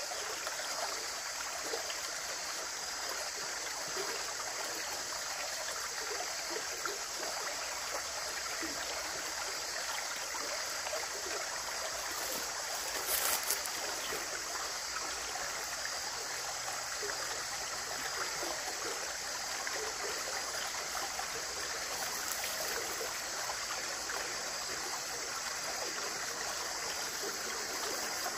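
Running water, a steady rushing and trickling flow, briefly louder about halfway through.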